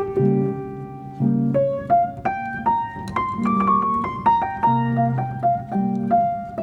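Background music: a piano playing a melody of single notes over held chords.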